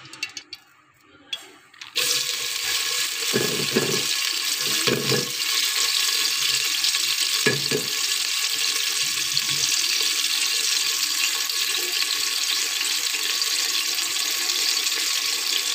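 Chopped onion hitting hot ghee in a metal pot and sizzling: a steady hiss that starts suddenly about two seconds in, with a few dull knocks in the first seconds after.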